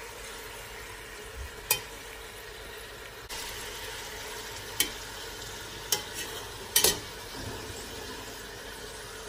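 Mutton pieces frying in oil with onions in a stainless steel pressure cooker, a steady sizzle while they are browned (bhuna). A metal spoon stirs them and clinks sharply against the pot several times.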